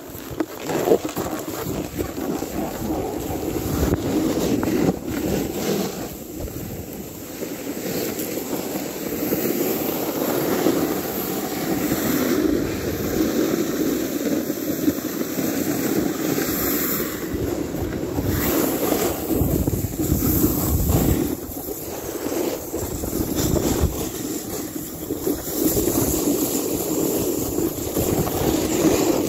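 Wind buffeting the phone's microphone: a steady rushing noise that swells and eases in gusts.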